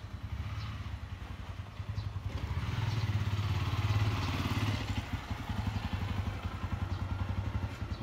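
Motorbike engine running with a fast, steady putter, growing louder to a peak about four seconds in and then easing off.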